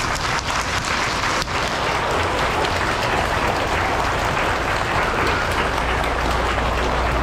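Audience at a school assembly applauding: many hands clapping in a dense, steady patter that does not let up.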